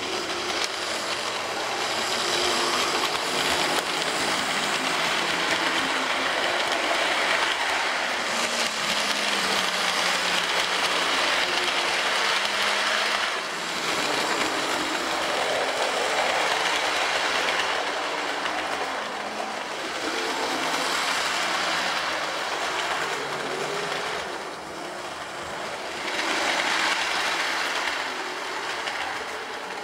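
H0-scale model train, a Lima DB class E 151 locomotive pulling a rake of coaches, running on the layout's track. It makes a steady rush of small wheels rolling over the rails and their joints, with the motor whirring, and grows louder and drops back several times as it comes past.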